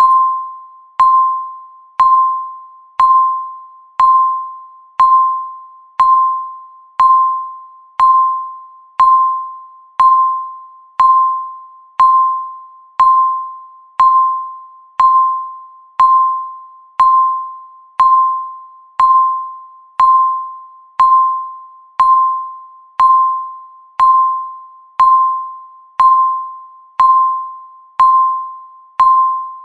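Countdown timer's electronic beep ticking off the seconds: one clear, bell-like ping every second, each fading away before the next.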